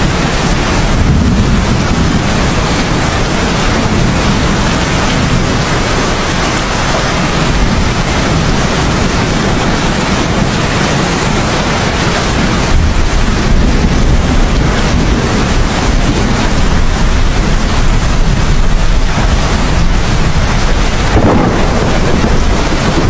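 Steady heavy rain with thunder rumbling low and continuously underneath.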